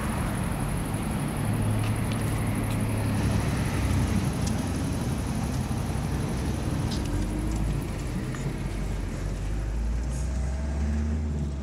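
Car driving: a steady low engine drone with road noise, the engine note sitting lower in the second half.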